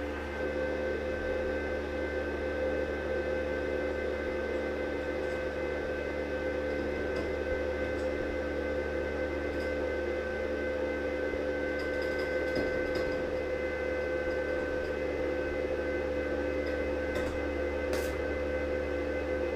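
Electric arc welding a seam on a steel sofa frame: a steady hiss with a few faint clicks over a steady machine hum with several fixed tones.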